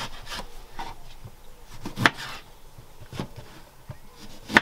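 Small kitchen knife cutting a lemon into quarters on a chopping board: soft slicing and rubbing, with a sharp tap of the blade on the board about two seconds in and another near the end.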